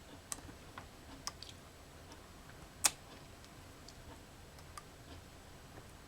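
Scattered light clicks and taps of small parts being handled on a workbench, with one sharper click about three seconds in.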